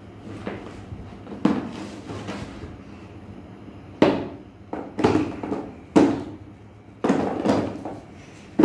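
A cardboard box knocked and bumped about on a laminate floor by a toddler: a series of about seven irregular hollow thumps, the loudest a little after a second in and then several between four and nine seconds in.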